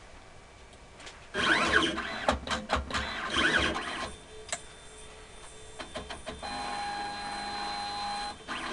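Motors of an automated lab pipetting robot whirring as its arm moves to fetch a tube from the coil: two spells of whine that sweeps up and down, with clicks between them, then a steady whine from about six and a half seconds until shortly before the end.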